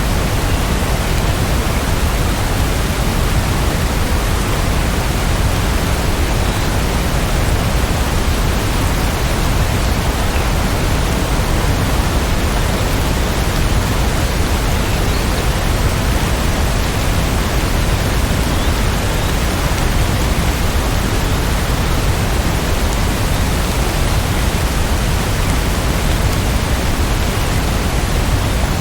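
Steady rain, an even unbroken hiss that does not change.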